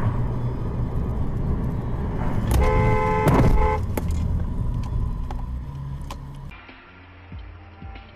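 Car horn sounding once for about a second, about two and a half seconds in, over steady vehicle engine and road noise. The noise drops off to a much quieter scene near the end.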